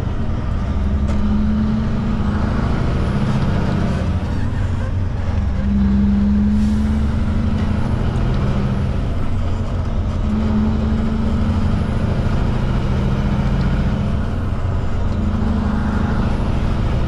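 Heavy truck's diesel engine running steadily, heard from inside the cab with road and tyre noise, while the truck drives along a highway. The engine note steps up and down a few times.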